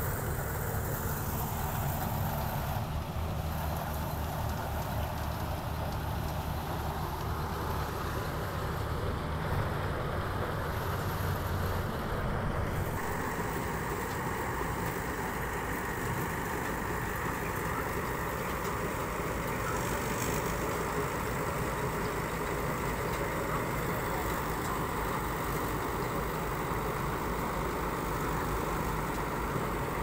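Combine harvester's engine running steadily as it harvests; the engine note changes about halfway through.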